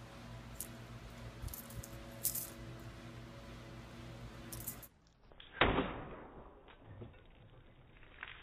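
Keys on a Sharp Shooter self-defense keychain jingle in small clicks over a steady low hum. About five and a half seconds in comes a single sharp smack as the keychain strikes and slashes open a hanging one-gallon plastic water jug.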